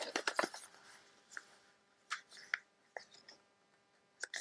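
Paper pages being handled and folded by hand: a quick cluster of short rustles and creases at first, then a few isolated ones.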